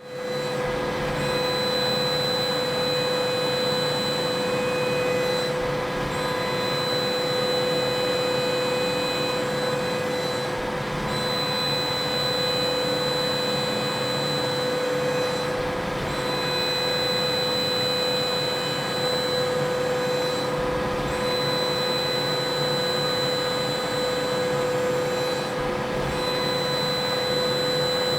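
CNC mill cutting zirconium: a steady spindle and cutter whine with a strong mid-pitched tone and a cluster of higher ringing tones over a hiss. The higher tones break off briefly about every five seconds, in time with the cutter's passes.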